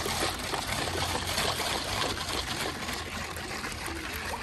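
Flowing water running steadily, with liquid sloshing and small clinks as a ladle stirs a mix in a steel bowl.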